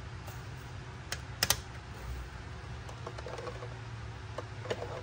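Small plastic clicks and taps from miniature toy kitchen pieces being handled: a quick double click about a second and a half in, then a few light ticks near the end.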